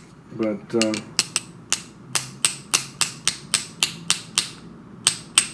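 Small jeweler's hammer tapping rapidly on the steel cover disc of a 1947 Snap-on GM-70M ratchet, about four sharp metallic taps a second with a short ring, to jar loose a plate stuck fast by old dried grease.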